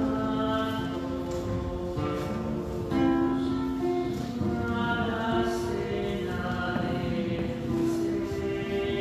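A slow sung hymn with accompaniment: long, held notes that change every second or so, in a reverberant church.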